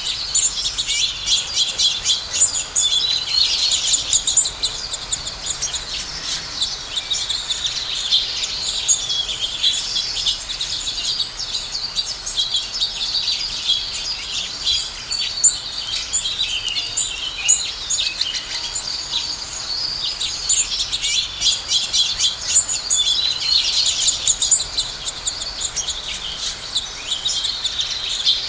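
A flock of house sparrows chirping continuously, many short overlapping chirps, busiest a few seconds in and again near the end.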